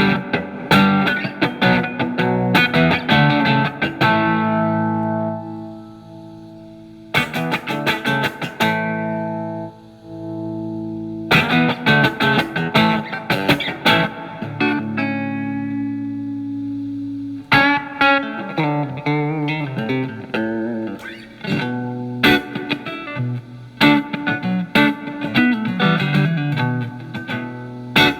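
Telecaster with single-coil alnico pickups played through a Marshall MG15FX solid-state amp's crunch channel, the guitar's volume rolled back to clean up the tone. Quick picked licks alternate with chords left to ring out, and busier phrases return from about the middle on.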